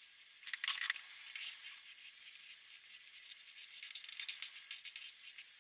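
Felt-tip marker nib scratching across paper in short irregular strokes as letters are outlined, loudest about half a second to a second in.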